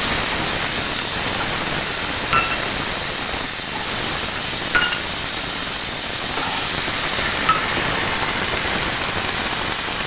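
Vegetables sizzling steadily as they fry in ghee in a frying pan, with three short, ringing metallic clinks a couple of seconds apart.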